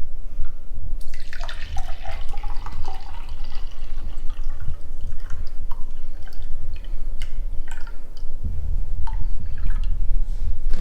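Apple juice being poured into a cup or measuring container. The pitch of the pour rises as the container fills, from about one to three seconds in. Light clicks and taps of the bottle and container follow, over a steady low hum.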